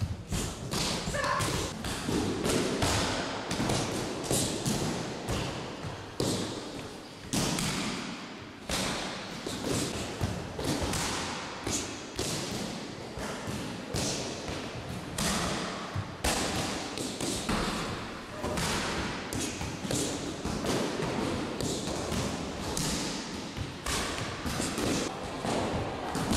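Punches and kicks landing on a leather focus mitt and arm shield during pad-work drills: an irregular run of sharp thuds and slaps, about one or two a second.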